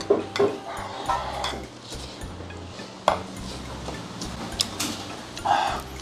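Metal chopsticks tapping and clinking in scattered light clicks against ceramic bowls and a plate, with chewing of noodles.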